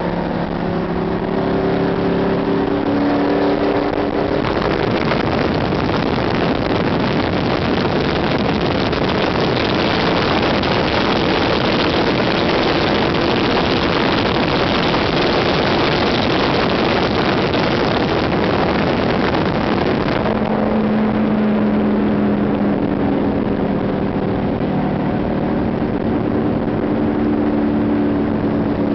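Race car limo at speed, heard from inside its cabin. A steady engine drone gives way a few seconds in to a loud, even rush of wind and road noise, which eases about two-thirds of the way through as the engine drone comes back.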